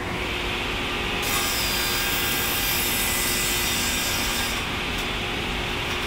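Large vertical band sawmill blade cutting lengthwise through a log, a steady rasping saw noise over the machine's hum. A high hiss strengthens about a second in and eases off near the end.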